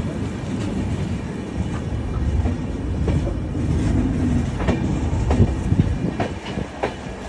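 Moving train running along the track: a steady low rumble of the wheels with a run of sharp clicks in the second half as they pass over rail joints and points, heard from an open coach doorway.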